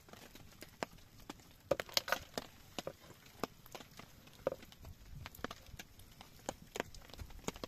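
Irregular sharp clicks and knocks, with a quick cluster of louder ones about two seconds in.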